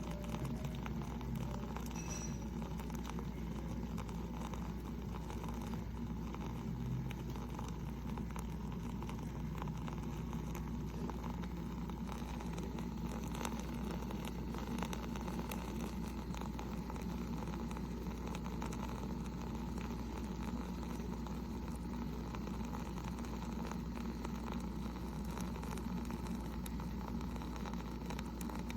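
Instant Pot single-serve K-Cup coffee maker running a brew cycle: a steady low hum with faint scattered ticking.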